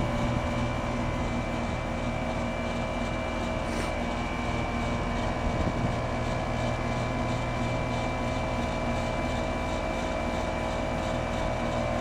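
Outdoor unit of a heat pump running in heat mode: the compressor and outdoor fan give a steady hum with several steady tones. The mild weather switch has the fan running, so the unit is picking up more heat and head pressure is climbing.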